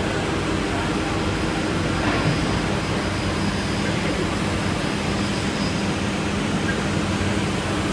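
CNC router spindle cutting grooves into a wood panel, a steady machine noise with a low hum that holds throughout.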